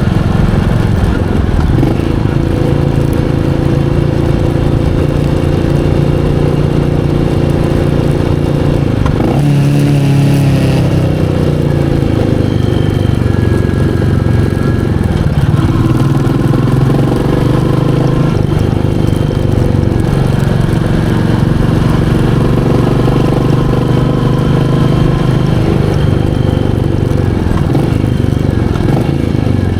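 Royal Enfield Meteor 350's single-cylinder engine running steadily under way. About nine seconds in, its pitch drops sharply, then builds up again.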